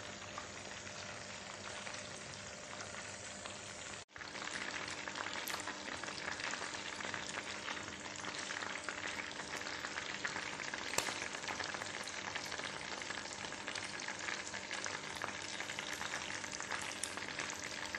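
Hot oil sizzling and crackling steadily around a whole parboiled chicken deep-frying in a pan. There is a brief break about four seconds in, after which the sizzle is a little louder.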